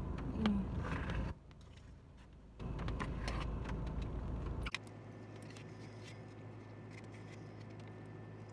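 Eating noises: a fork scraping and rustling in a takeout food container, in two short bouts of clicks and rubbing, followed by a steady low hum.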